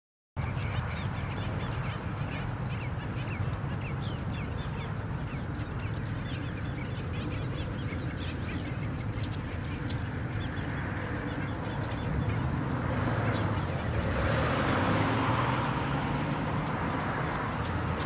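Black skimmer colony calling: many short, falling calls overlapping one another, over a steady low rumble, growing louder about two-thirds of the way in.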